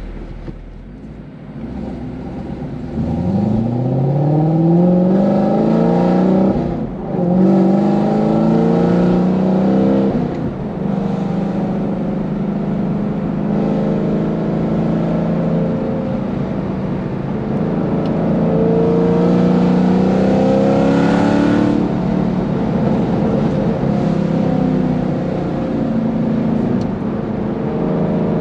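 2019 Chevrolet Camaro SS 1LE's 6.2-litre LT1 V8, fitted with long-tube headers and an aftermarket exhaust, running with its NPP exhaust valves open, heard from inside the car. It accelerates with rising revs, drops sharply about 7 s in, pulls again, then holds a steady drone. It climbs again around 20 s and drops near 22 s.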